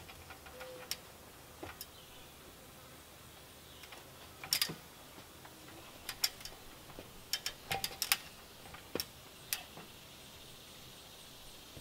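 Irregular sharp knocks and clicks, the loudest cluster about four and a half seconds in: a ladder and a log rafter pole knocking as a man climbs the ladder carrying the pole.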